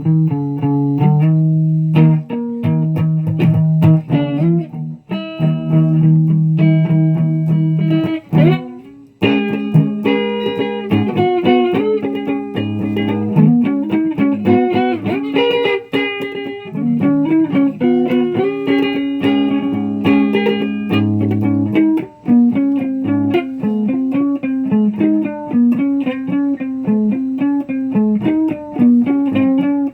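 Guitar playing: a run of plucked notes, some held and some picked quickly, with a short break about nine seconds in.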